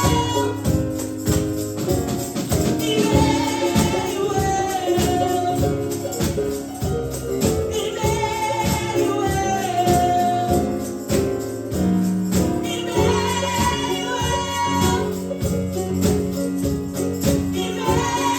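Live gospel praise-and-worship music: voices singing over a band, with a tambourine keeping a steady beat.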